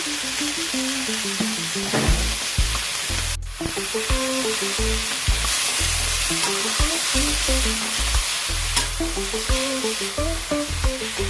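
Cassava leaves sizzling in hot oil as they are stir-fried, a steady frying hiss with a few knocks from the stirring. A melodic background tune plays over it, with a brief dropout about three and a half seconds in.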